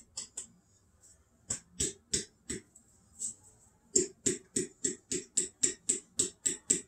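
Repeated knocks on a glass mason jar packed with flour, worked to loosen the flour so it will pour out. They come irregularly at first, then settle into a steady run of about four knocks a second from about four seconds in.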